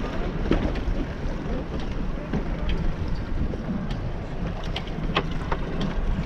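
Wind buffeting the microphone on a small boat in choppy water, a steady low rumble with scattered short knocks and splashes against the hull.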